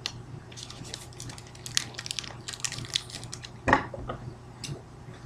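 Light clicks and rustles of trading cards and small objects being handled and set down on a wooden table, with one louder knock a little past the middle, over a steady low hum.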